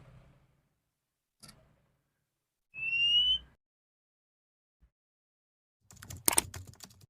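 Female oriental magpie-robin giving one rising whistled call a little under three seconds in, then a quick run of sharp clicking notes near the end.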